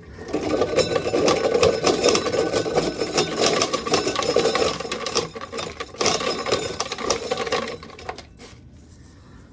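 Hand-cranked corn sheller being worked hard, a fast dense rattle and grind of ears of corn going through and kernels being stripped off. It runs about five seconds, pauses briefly, runs about two more seconds, then dies away near the end.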